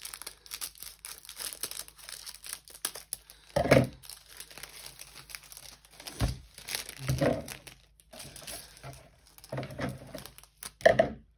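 Crinkling and rustling of plastic packaging as a rolled diamond-painting canvas in its clear plastic sleeve is handled, with several louder bumps of handling scattered through.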